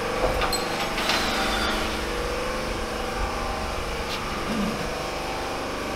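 A motor or fan running steadily, an even mechanical drone, with a few light clicks over it.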